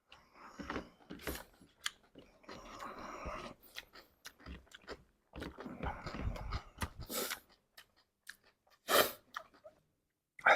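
Close-miked chewing and crunching of chatpate, a crisp snack of puffed rice and sev with raw vegetables, in irregular bites. A louder short burst comes about nine seconds in.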